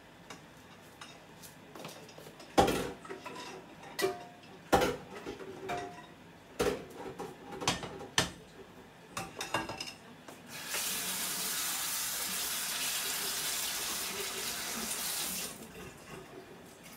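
Dishes clattering with several sharp knocks, then a kitchen tap running steadily for about five seconds before being shut off abruptly.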